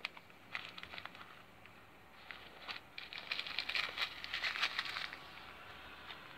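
Small plastic zip-lock bags of stone chips crinkling and clicking as a hand handles them in a plastic organiser box and pulls one bag out. A few scattered clicks at first, then a dense crackle of crinkling from about three to five seconds in.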